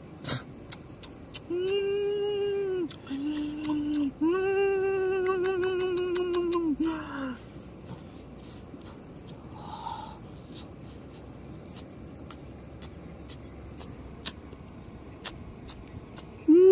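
A person humming a closed-mouth "mmm" in three long, level notes during the first seven seconds, with scattered small clicks and crackles throughout. The rest is faint background with a couple of soft short sounds.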